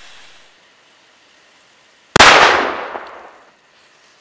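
A single bang from a Metal Ship Class III firecracker buried deep in snow. It goes off suddenly about two seconds in and dies away over about a second.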